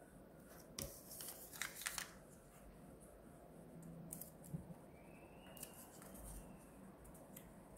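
Colored origami paper being folded and creased by hand, giving short crisp rustles: a cluster about a second in and a couple more around four seconds.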